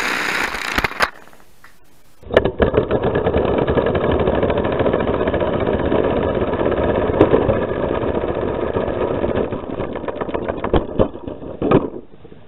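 Air Zero toy race car's compressed-air piston engine running flat out, a rapid pulsing chatter close to the microphone riding on the car. A short burst runs for about the first second, then a brief lull. The engine then runs steadily for about ten seconds and sputters out in a few last pulses near the end as the air runs out.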